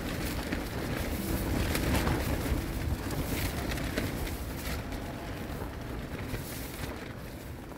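Wind buffeting the microphone: a gusty low rumble with brief stronger gusts, easing off near the end.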